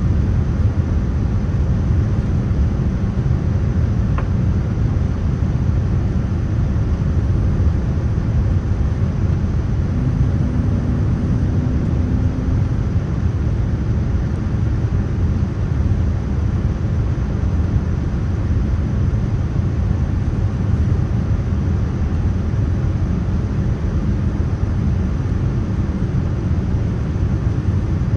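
Steady low rumble of a Boeing 787-9 airliner in flight, its engines and rushing airflow heard from inside the cabin.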